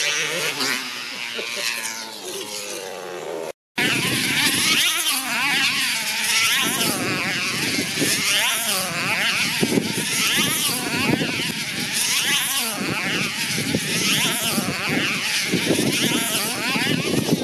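Model tether cars running flat out round a circular track. Their small two-stroke engines give a high-pitched whine that rises and falls in pitch with each lap. A brief silence about three and a half seconds in separates the runs of two cars.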